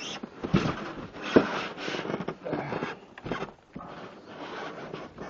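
A heavy miter saw being tugged out of its tight-fitting cardboard box: the packaging rubs and scrapes, with two knocks about half a second and a second and a half in, the second the loudest.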